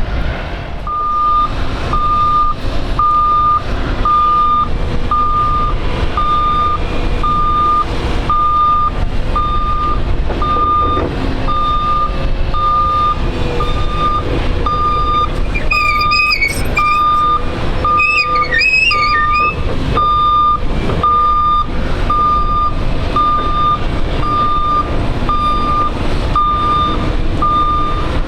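Vehicle reversing alarm beeping steadily at one pitch, about one beep a second, over a low rumble. Two short warbling chirps come about halfway through.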